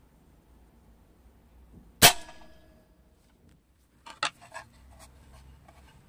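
A single sharp shot about two seconds in as a 0.90 g steel BB is fired from close range into a wooden cutting board, the crack and the impact together, with a brief ringing tail. A few light clicks and knocks follow about four seconds in.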